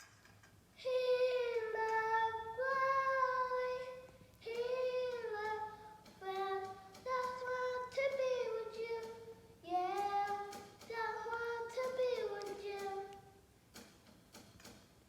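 A single high voice singing unaccompanied, a slow melody of long held notes in several phrases, beginning about a second in.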